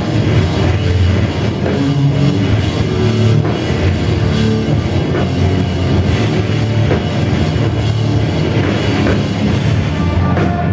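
Live heavy rock band playing loud: electric guitars and a pounding drum kit, with a heavy low end, in a concert hall.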